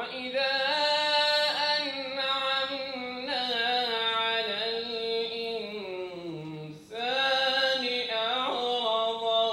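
A single voice singing or chanting in long, drawn-out phrases with slowly wavering pitch. It starts suddenly at the beginning and breaks briefly for breath about seven seconds in.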